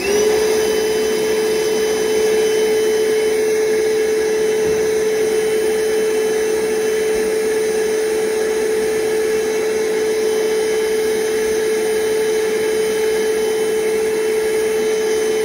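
Cordless shop vacuum in the 3D-printed Electron Smith VacOUT kit housing, switched on and running steadily: a constant motor whine over rushing air. It is loud, about 83 dB at two feet.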